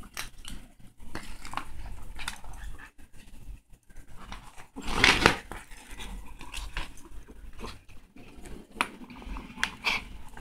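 A Bengal kitten in a plastic cone collar eating from a small cup: small wet chewing and lapping clicks, with the cone knocking and rubbing against the cup. A louder scuffing rush comes about five seconds in.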